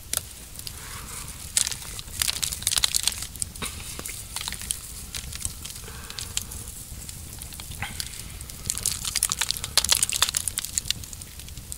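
Campfire crackling with irregular sharp snaps, thickening into denser bursts of crackle about two seconds in and again near the end.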